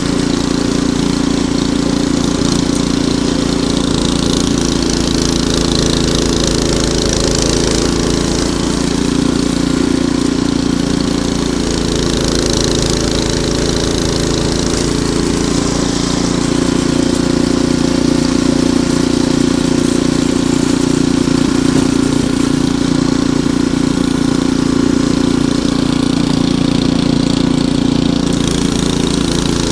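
Ariens Deluxe 28 two-stage snowblower engine running steadily, its pitch shifting slightly now and then.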